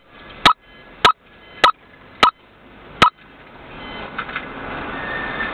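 Five sharp clicks, a little over half a second apart, the last slightly later. After them the steady road and engine noise of the moving car builds up.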